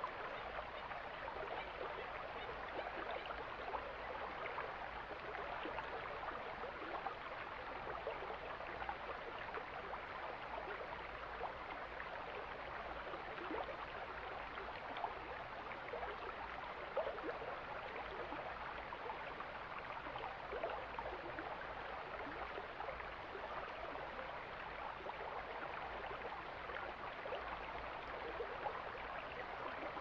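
Mountain stream flowing over rocks: a steady rush of water with small splashes and babbling throughout.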